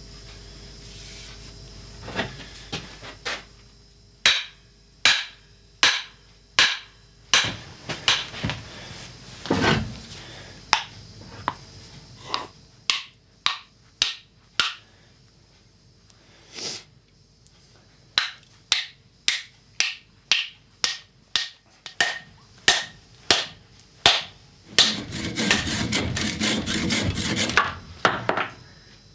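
Hammer blows on wood, struck in runs of about one to two a second, then a few seconds of rapid rough scraping near the end.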